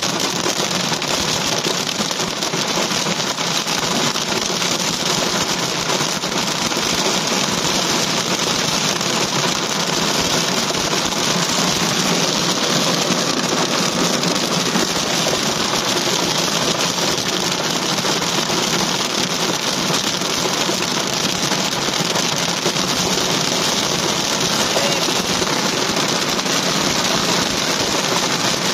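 Heavy downpour with hail pelting the car's roof and windshield, a dense steady patter of countless small impacts heard from inside the car.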